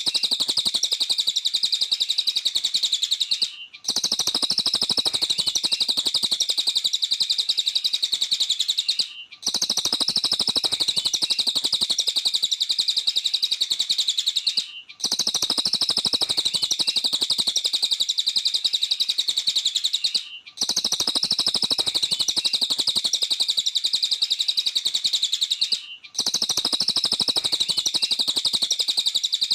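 Cililin bird singing nonstop in fast, high, rapid-fire chirping. The song is a recording looped about every five and a half seconds, with a brief gap between each repeat.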